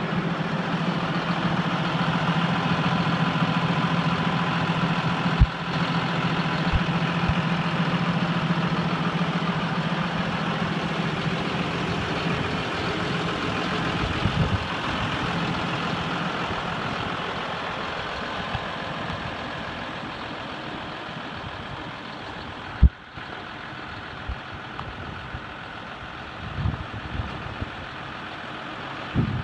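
2013 John Deere 6140R tractor's six-cylinder diesel engine idling steadily, growing fainter over the second half. A few sharp knocks, the loudest near the end.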